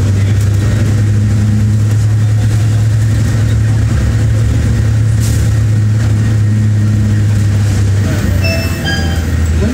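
King Long XMQ6126G 12-metre city bus running with a steady low drone, heard from inside the cabin. The drone drops a little in pitch and level about eight seconds in. Near the end there is a short run of electronic chime tones.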